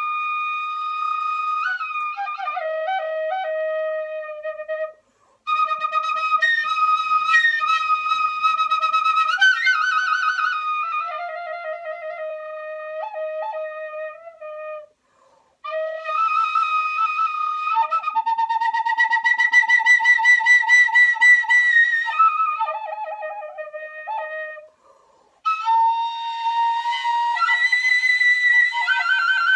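Recorder played by a beginner on his second day with the instrument: a string of whistly notes, several of them wavering, broken three times by short silences.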